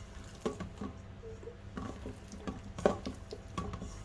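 Hands mixing raw chicken pieces in a bowl of cornstarch and flour to coat them: soft squishing with irregular light knocks, the loudest nearly three seconds in.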